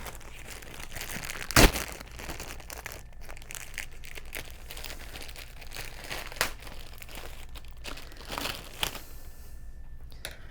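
Packaging crinkling and rustling as accessories are handled and unwrapped from the box, with a sharp knock about a second and a half in and a few lighter clicks later.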